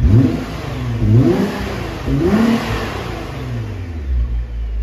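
Nissan R35 GT-R's twin-turbo 3.8-litre V6 (VR38DETT), through its stock exhaust, revved in three quick blips. Each rev rises in pitch and falls back, and then the engine settles to a low idle.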